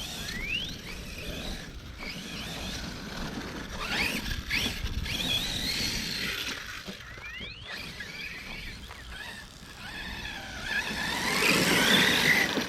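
Arrma Kraton 6S BLX RC truck's brushless motor and drivetrain whining in short rising bursts as the throttle is blipped, with a longer, louder rising whine under full throttle near the end.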